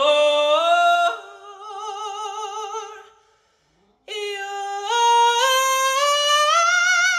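A man singing a cappella in long held notes with vibrato; after a short break a little past three seconds in, one drawn-out note climbs step by step in pitch.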